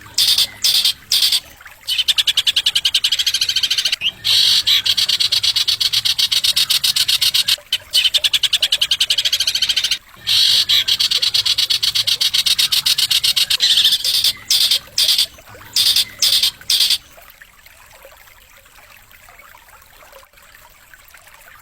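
Songbird song recorded for masteran training: long, sharp, very fast trills of high notes, broken by short gaps and short bursts. The song stops about 17 seconds in, leaving only a faint hiss.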